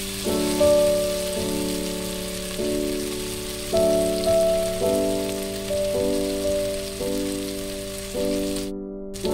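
Onions and tomatoes sizzling as they fry in oil in a pot, a steady high hiss, under louder background music of chords that change every second or so. The sound cuts out briefly near the end.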